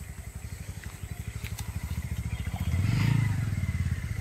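A small engine running with a rapid low putter, growing louder to a peak about three seconds in and then easing off again.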